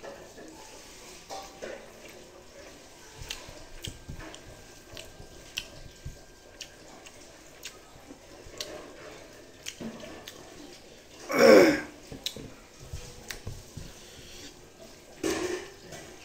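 Close-up eating sounds: chewing, lip smacks and fingers working rice, fried egg and dal, with many small wet clicks. A short, loud throat sound from the eater about eleven and a half seconds in, and a weaker one near the end.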